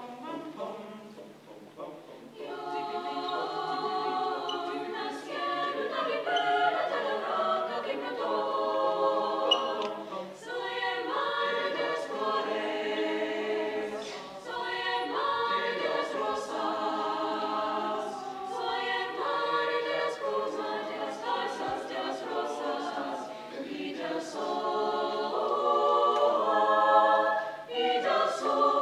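Mixed chamber choir singing in several-part harmony, softly for about the first two seconds and then at full voice.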